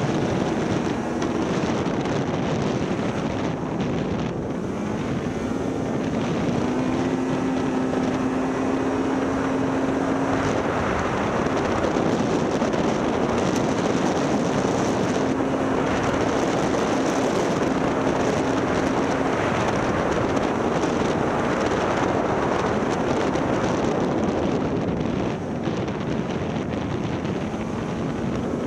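Snowmobile engine running while under way, mixed with wind buffeting the microphone. A faint engine tone rises and holds for a few seconds, twice.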